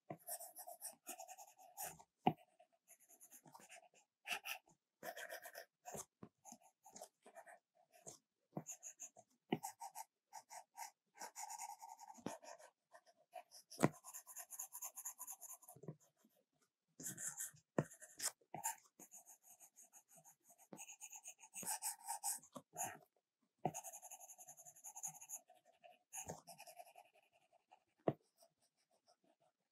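Stylus drawing on an iPad Pro's glass screen: short strokes starting and stopping with brief pauses, and a few sharp taps of the nib now and then.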